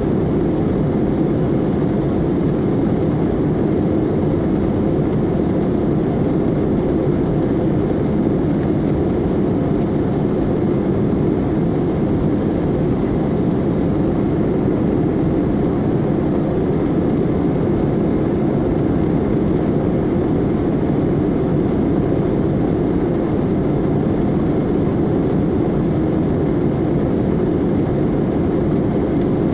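Steady cabin noise inside an Airbus A320neo in flight: its CFM LEAP-1A engines and the air rushing past the fuselage make one constant low-pitched rush that does not change.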